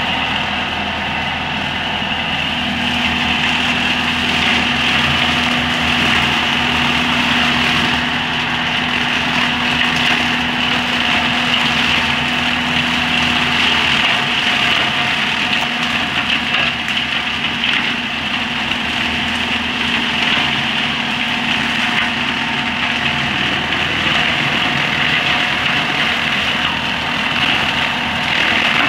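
Tractor engine running steadily while a boom-mounted ELHO Tornado 560 chopper spins, cutting brush and undergrowth; a continuous, even mechanical drone.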